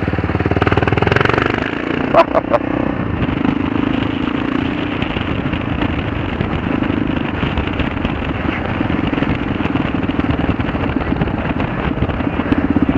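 2003 Kawasaki KLR650's single-cylinder engine running steadily under the rider, a fast even pulse, with two short tones a little after two seconds in.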